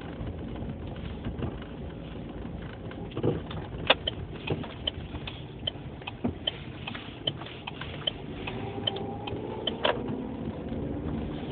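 Worn anti-roll bar end links on a Citroen C3 Picasso knocking: a run of short, sharp, irregular knocks, several a second, starting about three seconds in and dying away near the end, over a steady low rumble.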